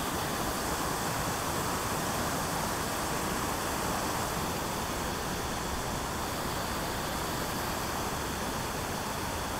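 Steady rush of water pouring over a dam spillway, an even hiss that holds at the same level throughout.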